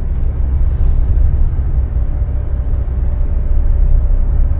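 Steady low rumble of a car moving, heard from inside the cabin: engine and road noise with a faint steady hum above it.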